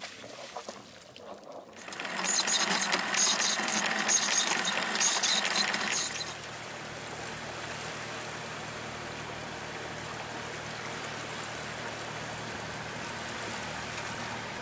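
Water rushing and hissing past a boat under way. It is loud and crackling for about four seconds, then settles into a steadier rush with a faint low hum beneath it.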